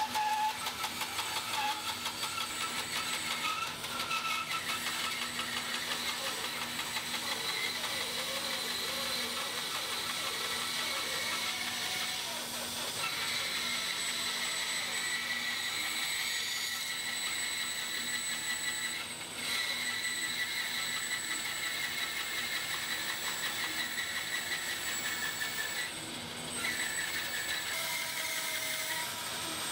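Axminster Trade bandsaw running with a 5/16-inch Axcaliber back-tooth blade, cutting a curve through a deep block of timber. It is a steady machine whine with the hiss of the blade in the wood, and it dips briefly three times.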